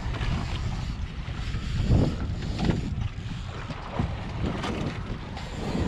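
Wind buffeting the microphone over open-sea waves washing against a boat's hull, with a few short louder surges of water noise.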